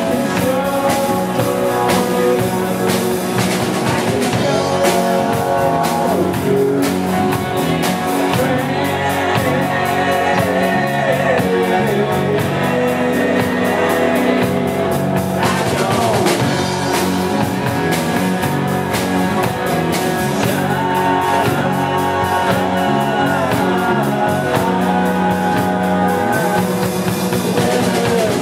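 A live rock band playing: a man singing over strummed acoustic guitar, electric guitar and a drum kit, with a steady beat.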